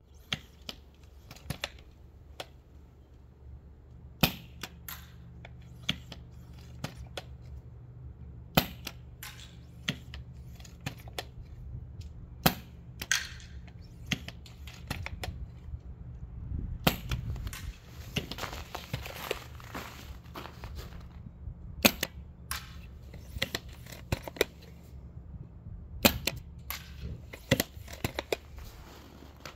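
Storm PC1 airsoft sniper rifle with a suppressor firing repeatedly: a run of quiet, sharp snaps, the loudest about every four seconds, with smaller clicks between them, over a steady low hum.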